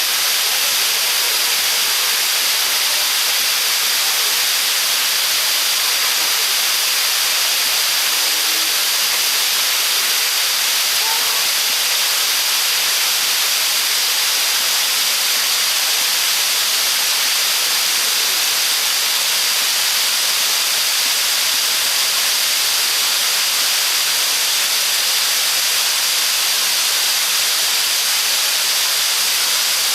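River water pouring over a small dam in a steady, unbroken rushing hiss.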